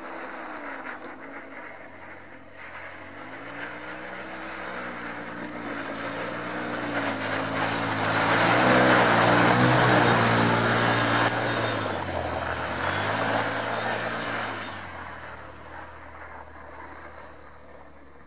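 Side-by-side UTV engine revving up and down as it is driven through snow and mud. It grows loud, with a rush of noise, as it passes close about halfway through, then fades as it drives away.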